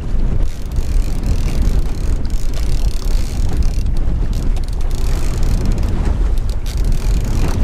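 Wind buffeting the microphone: a loud, steady, uneven low rumble with no distinct knocks or tones.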